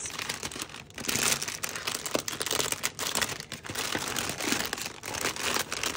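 Packaging crinkling steadily as items are handled and unwrapped from a box, in many small rustles with a few short breaks.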